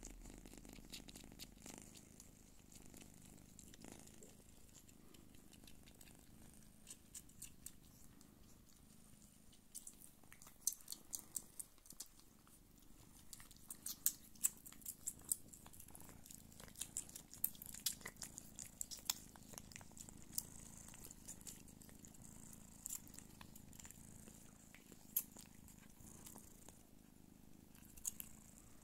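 Don Sphynx cat purring steadily, a low continuous rumble, with many sharp little wet clicks of kittens suckling at the teats, thickest in the middle.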